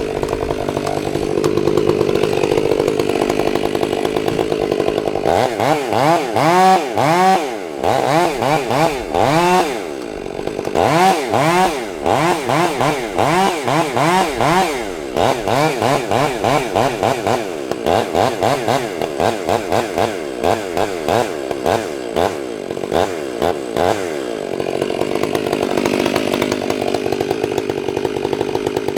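Gas chainsaw running. It holds a steady pitch at first, then from about five seconds in it is revved up and down over and over, about one and a half times a second, before settling back to a steady pitch near the end.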